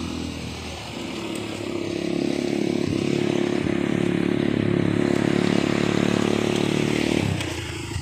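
ATV (quad bike) engine running close by. It grows louder over the first couple of seconds, holds steady, then drops off sharply about seven seconds in.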